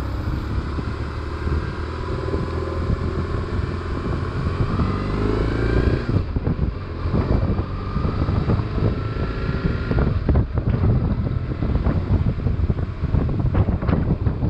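BMW R1150RT's boxer-twin engine pulling up through the gears, its pitch climbing twice with a shift about six seconds in, under wind rush on the microphone. The wind buffeting grows rougher in the second half.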